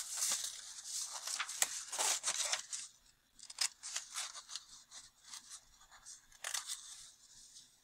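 Scissors cutting through construction paper: a quick run of crisp snips for the first three seconds or so, then fewer, spaced-out snips with the paper rustling as the sheet is turned.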